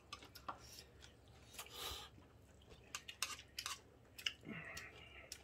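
Someone quietly chewing and eating ramen with stir-fried wild greens, with scattered small clicks and a few short, soft noisy bursts.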